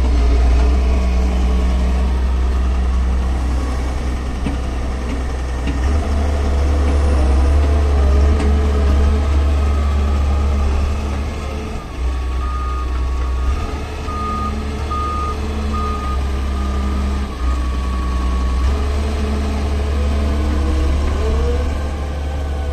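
Doosan wheeled excavator's diesel engine running steadily under load as the machine digs and drives. Midway through, its reversing alarm beeps about six times, and near the end the engine rises in pitch.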